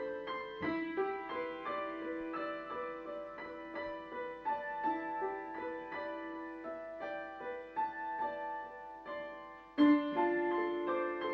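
Slow background piano music: single notes and chords struck and left to fade. A louder chord comes about ten seconds in.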